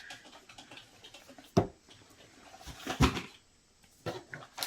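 Handling noise from unboxing: light rustling with two sharp knocks about a second and a half and three seconds in, as items are picked up and set down.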